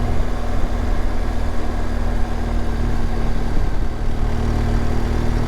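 BMW R1200GSA's boxer-twin engine running at a steady pitch while riding, with wind rushing over the helmet microphone.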